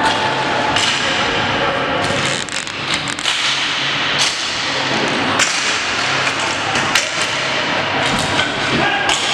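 Floor hockey sticks clacking against the ball, the floor and each other during play, sharp clacks at irregular intervals over a steady background din.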